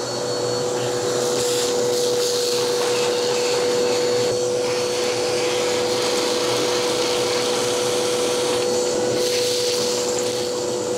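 Wet/dry shop vacuum running steadily, a motor whine over the rush of air, as its hose sucks rusty debris and gunk out of a car's rotted cowl and frame area.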